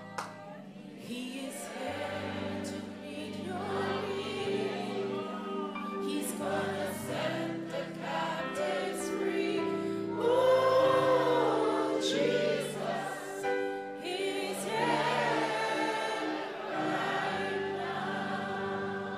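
Gospel worship song: a woman sings a slow melody into a microphone, with several voices singing along, over held instrumental chords. Two short clicks sound right at the start.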